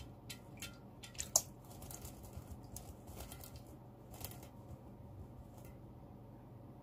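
A northern hawk owl chick moving about in a shallow enamel basin of water: a scatter of small clicks and light splashes, the sharpest about a second and a half in, dying away after about six seconds.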